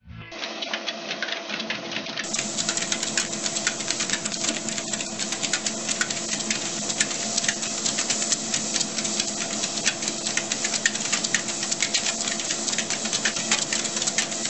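ProForm treadmill running with a steady motor hum under a fast, dense ticking of two corgis' feet and claws on the moving belt.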